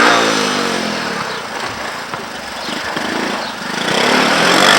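Three-wheeler ATV engine revving: its pitch drops and it eases off about a second in, then rises again and grows louder toward the end.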